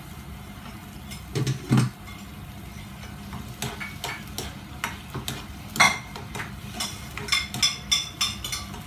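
Spatula stirring mushrooms in a frying pan, with scrapes and quick clicking taps against the pan that come thicker in the second half. Two dull knocks about a second and a half in.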